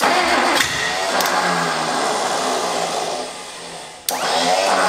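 Mercruiser 302 V8 marine engine on a stand being cranked and firing, running unevenly for about three seconds before sagging away, then cranked again with a sudden start about four seconds in.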